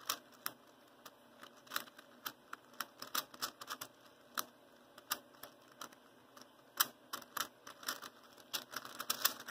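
Plastic rotate-and-slide (Whip It) cylinder puzzle clicking as its layers are turned and pieces slid: an irregular run of sharp plastic clicks, several a second.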